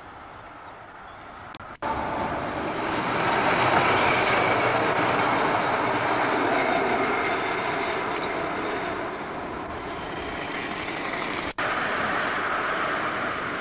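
Train passing close by: a steady rushing rumble of wheels on rails that starts suddenly about two seconds in, after a short faint stretch, and swells to its loudest soon after. It drops out for an instant near the end and then carries on.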